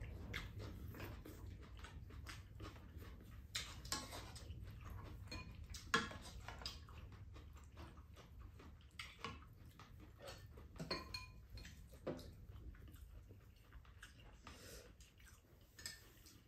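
Quiet meal sounds: metal spoons and chopsticks clicking and clinking now and then against bowls and a pan, with some chewing. The sharpest clink comes about six seconds in.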